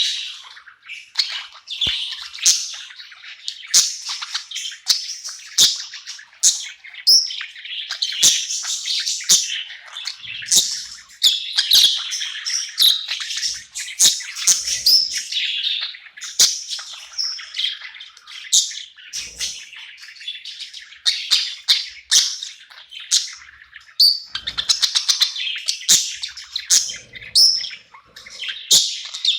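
Budgerigars chirping and warbling continuously, a busy stream of short high calls with sharp clicks among them.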